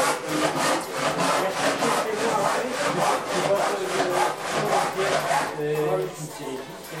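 Rhythmic rasping strokes of wood being worked by hand, about three to four strokes a second, with a faint voice or tune under it.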